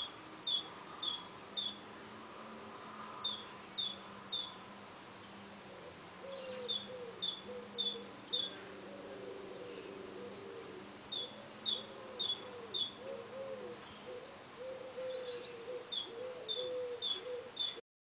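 A songbird repeating one short song over and over: five phrases, each of four or five two-note high-low whistles, with pauses of a second or two between them. Another bird's low, wavering calls sound underneath from about six seconds in.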